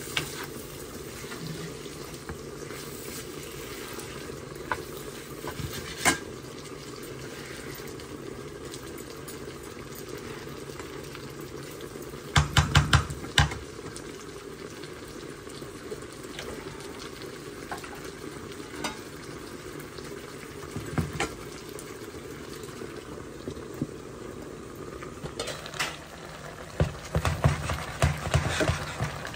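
Food sizzling steadily as it fries in a pan, with a spoon stirring and knocking against the pan: scattered single taps, a quick run of knocks about twelve seconds in and another cluster near the end.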